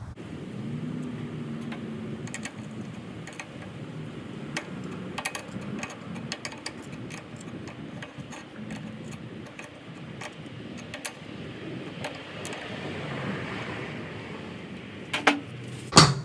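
Light metallic clicks and taps of hand tools and terminal nuts on the motor solenoid of a 12-volt hydraulic pump unit as its power cables are fastened, scattered irregularly, with two louder knocks near the end.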